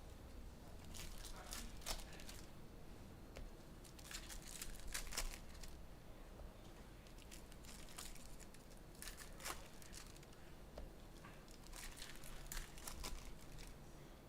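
Foil trading-card pack wrappers crinkling and tearing as packs are ripped open, in several short spells of sharp crackling.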